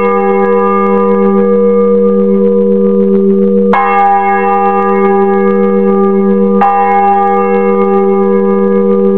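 Swinging church bell cast by Simon Laudy, struck twice by its clapper a little under three seconds apart. Each strike rings on into the next, over a steady low hum.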